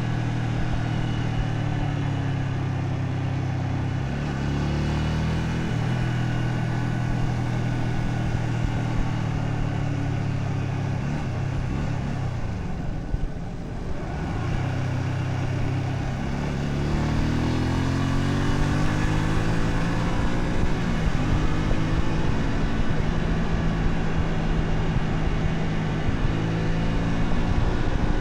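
Honda Shadow 125's small V-twin engine running steadily while being ridden, its note changing pitch about four seconds in. It eases off and dips about halfway through, then rises in pitch and grows louder as the bike accelerates again.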